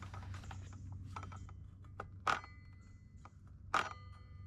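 A toothless circular saw blade, its carbide tips all knocked off, being handled: light metallic clicks, two clear ones about two and a half and nearly four seconds in, each with a short ring, amid a few fainter taps and handling noise.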